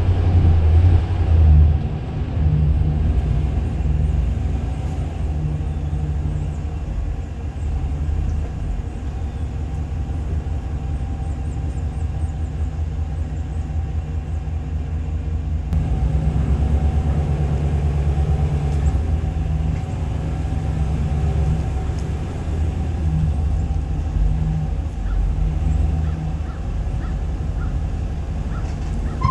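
Pickup truck driving slowly while towing a dump trailer loaded with about two to three tons of rock: a steady low rumble of engine and tyres, a little louder in the first couple of seconds.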